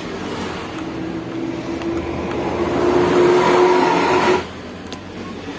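Suzuki GT750's two-stroke triple engine revving: its note climbs slowly and grows louder, then drops back suddenly about four seconds in as the throttle is let off.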